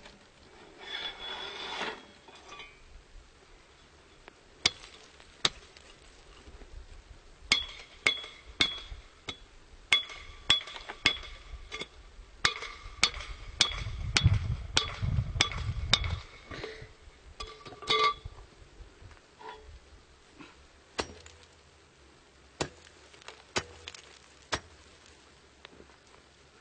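A metal bar chopping at frozen lake ice to open a hole for drawing water: repeated sharp strikes, each with a brief clinking ring. The blows come about one a second through the middle and grow sparser near the end.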